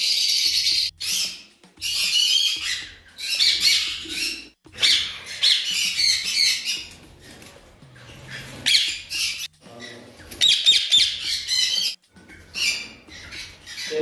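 Caged parrots squawking in harsh, high-pitched bursts with short pauses between them, a drawn-out screech in the first second.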